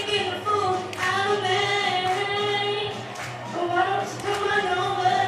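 A female singer sings a pop song into a microphone over backing music, with long held notes that slide between pitches. It is heard through the hall's sound system from the audience.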